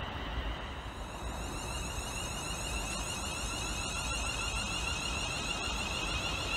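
Siemens Desiro Class 350 electric multiple unit drawing into the platform, its traction equipment giving a warbling electric whine over the rumble of wheels on the rails. The whine grows stronger about a second and a half in as the train comes alongside.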